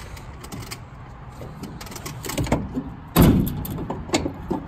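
Clunks and rattling knocks of a metal roof rack being shifted onto its mounting brackets on a car roof, with one heavy thump a little past the middle.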